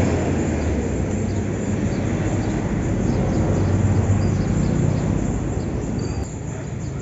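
Steady low rumble of vehicle engines and traffic noise, dropping slightly in level about six seconds in.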